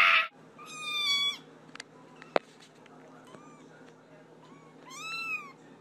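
Young kittens mewing: a high-pitched mew about a second in and another near the end, with faint short mews between. A sharp click comes a little over two seconds in, and a cat's yowl cuts off just after the start.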